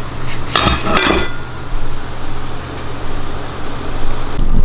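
Kitchenware clinking, with two sharp ringing knocks about half a second and a second in, over a steady low hum.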